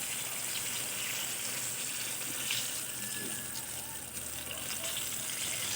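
Eggplant frying in hot oil in a pan: a steady sizzle with scattered small crackles.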